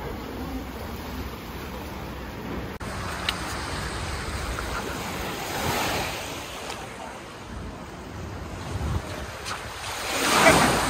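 Small waves washing up on a sandy beach, swelling twice, about halfway through and again near the end, with some wind noise on the microphone.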